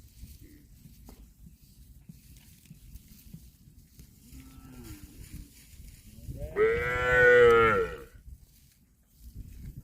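A cow moos once, a single long call of about a second and a half, loud and clearly pitched, coming about two-thirds of the way through; before it there are only faint low sounds.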